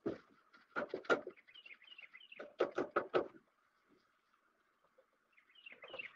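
Sponge with cleaning clay scrubbing a stainless steel grill shelf in short bursts of strokes. Small birds chirp briefly in the background.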